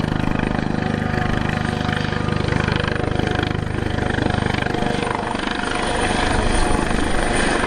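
Kawasaki OH-1 observation helicopter flying toward the listener: the rapid, steady beat of its four-blade main rotor over the rush of its twin turboshaft engines. About five seconds in, the deep part of the sound fades while the hiss and whine grow stronger as it comes closer.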